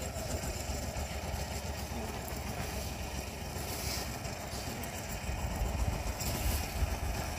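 A steady low rumble, with brief rustles about halfway through and near the end as a cloth sack holding a fishing net is handled and lifted into a foam raft.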